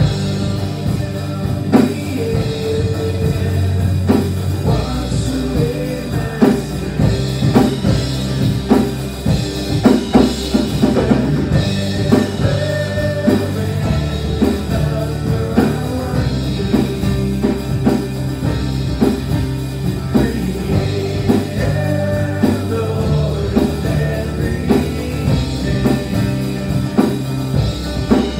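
A live worship song: a male singer with acoustic guitar and a drum kit keeping a steady beat.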